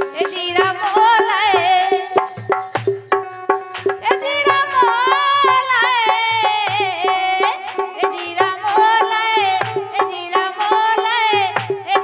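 Bundeli rai folk song: a woman singing a wavering melody over harmonium, with fast, busy drum and percussion strokes throughout.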